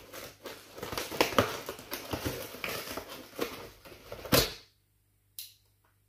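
Scissors slitting the packing tape along a cardboard box's seam: a run of crackly snips and tape tearing, with a louder snap about four seconds in and one small click near the end.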